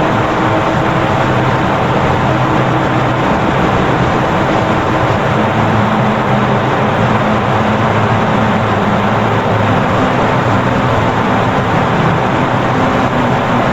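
Loud, steady droning noise with many sustained low tones held through it, unbroken and unchanging.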